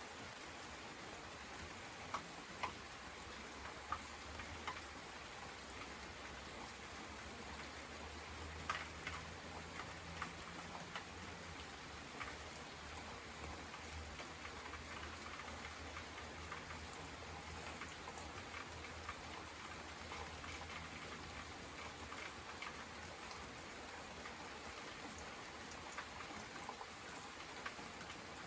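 Light rain falling steadily, with single drops now and then ticking sharply on a nearby surface. A faint low hum runs underneath, a little stronger in the middle.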